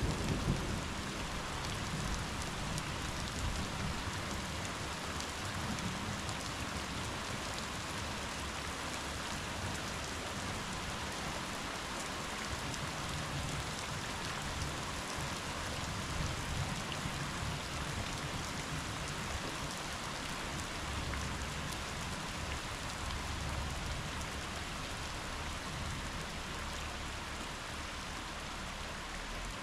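Steady rainfall heard through a window. The last of a low thunder rumble dies away in the first second.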